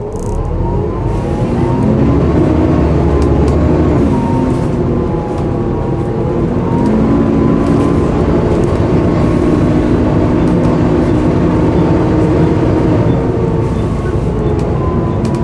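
Volvo B7TL double-decker bus engine heard on board while the bus accelerates. The engine note rises, drops back briefly about four to five seconds in, then climbs and holds steady, with light rattles throughout.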